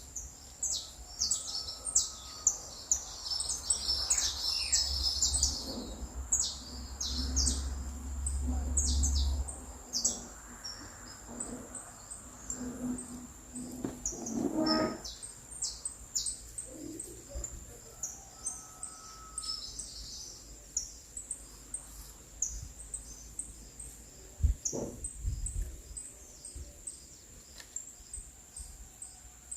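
Songbirds chirping and twittering in many quick, high calls over a steady high-pitched whine. A low rumble runs from about four to nine seconds in, and one louder, lower call comes about halfway through.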